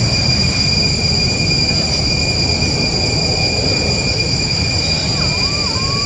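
Steady outdoor din: a constant high-pitched insect drone over low rumbling noise, with a short warbling call about five seconds in.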